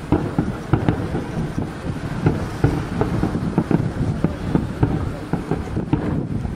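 Aerial firework shells bursting in quick, irregular succession: a dense run of booms and cracks over a low rumble, with wind noise on the microphone.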